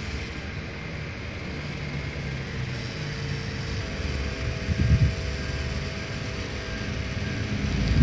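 Espresso machine pump running under pressure during a shot extraction, a steady mechanical hum with a brief thump just before halfway.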